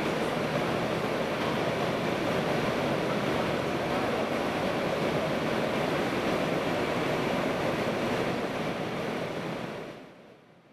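Steady rushing of air moving through a tunnel under construction, the even noise of tunnel ventilation, fading away near the end.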